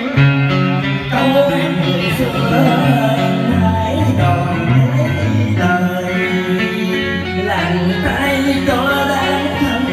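A man singing in southern Vietnamese đờn ca tài tử style, holding long wavering notes, accompanied by a plucked string instrument.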